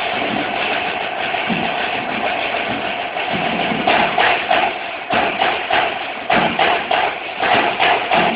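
Several snare drums played together with sticks: a sustained roll, then from about four seconds in loud accented strokes several times a second over the roll.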